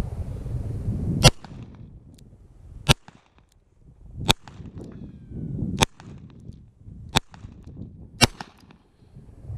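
Six shots from a spurless double-action-only Smith & Wesson revolver, fired one at a time about one to one and a half seconds apart, emptying its six-round cylinder.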